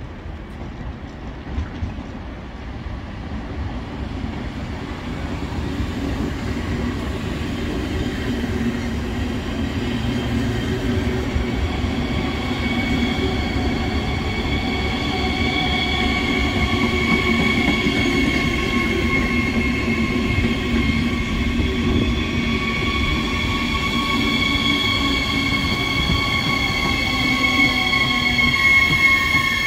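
Siemens Desiro HC electric multiple unit (class 462) pulling into the platform, growing louder as it approaches. A low rumble runs beneath a high whine of several tones, which glides down near the end as the train slows.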